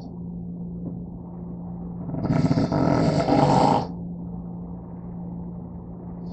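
A sleeping person snoring: one loud, rough snore about two seconds in, lasting about a second and a half, one in a series that repeats every four to five seconds.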